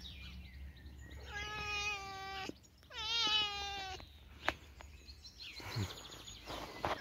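Domestic cat meowing twice: two long, drawn-out meows of about a second each, the second starting with a quick upward slide in pitch before settling.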